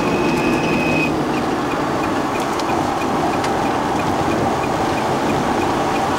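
Ferrari with a paddle-shift gearbox under way at speed, heard from inside the cabin: a steady mix of engine and road noise with no gear changes or pauses.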